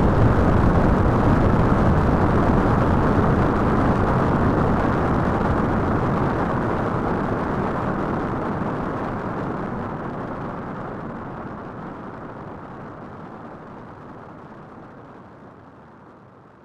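Rocket launch sound effect: a dense, noisy rumble of rocket exhaust that fades away slowly, dulling as it goes, as the rocket climbs away.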